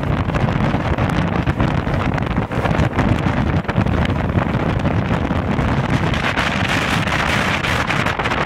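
Storm wind of about 50 knots blasting across a sailing yacht's cockpit and buffeting the microphone with a heavy, continuous rumble. A stronger gust brings in a louder hiss near the end.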